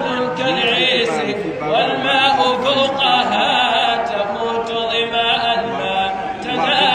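A young man's voice chanting a slow melodic line into a microphone, amplified, holding long notes that waver in pitch, with short breaks for breath.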